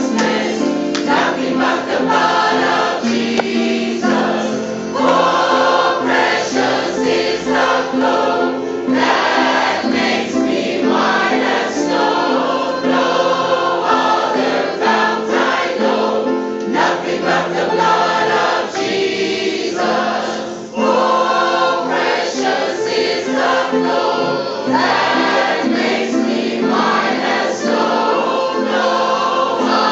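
Large mixed choir singing a gospel song with accompaniment, in continuous sung phrases.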